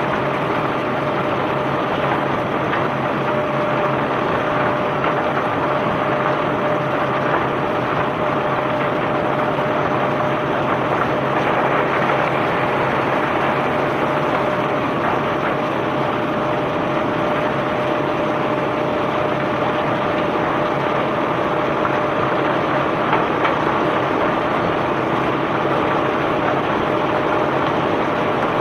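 Heavy unloading machinery running steadily at a barge, a continuous rushing mechanical noise with a steady whine over it, as bulk rock cargo is discharged.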